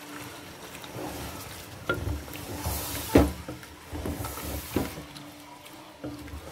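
Wooden spatula stirring chunks of beef with tomatoes and yogurt in a non-stick pot, giving irregular scrapes and knocks against the pot, the loudest about three seconds in.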